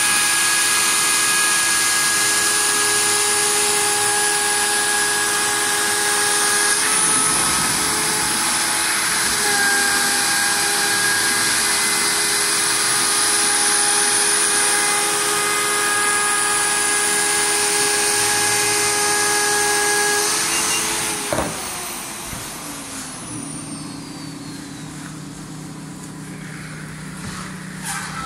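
CNC router spindle milling Dibond aluminium composite sheet, a steady high whine with dust extraction running, its pitch shifting slightly about 7 and 10 seconds in. About 21 seconds in the spindle cuts out and winds down with a falling whine, leaving a quieter low machine hum.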